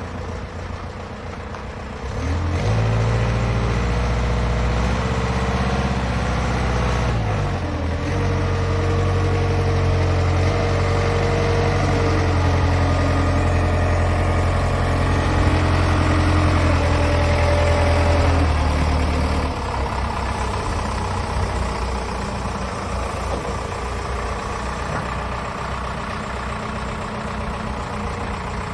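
Diesel engine of an excavator wheel loader running. It picks up to a higher, louder speed about two seconds in, holds there, and drops back to idle at about twenty seconds.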